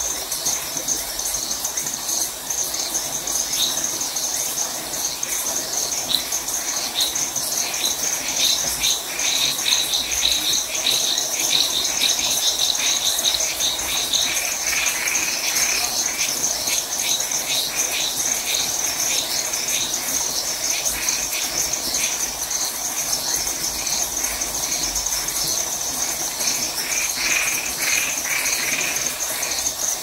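Night chorus of crickets trilling steadily, with frogs calling in runs of quick repeated notes, strongest in the first half and again near the end.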